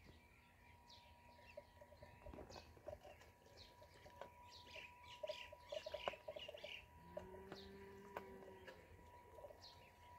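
Many ducklings peeping, faint: a steady stream of short high peeps that fall in pitch, busiest around the middle. A short low hum sounds about three-quarters of the way through.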